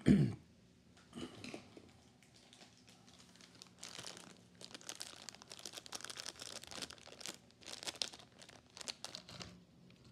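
Plastic crinkling and crackling as it is handled, sparse at first and busiest from about four seconds in until shortly before the end, over a faint steady hum.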